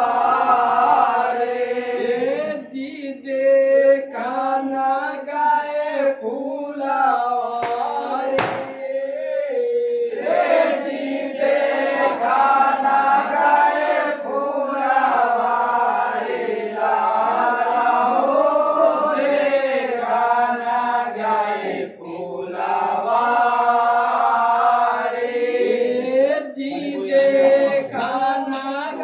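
A group of men singing a traditional Holi folk song together, in long sung phrases with short breaks between them. A single sharp knock cuts through about eight seconds in.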